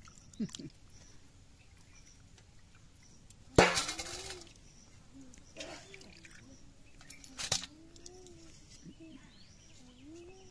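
Hands washing raw rohu fish pieces in a steel bowl of water: water sloshing and dripping, with a loud splash about three and a half seconds in and a short sharp clink about seven and a half seconds in.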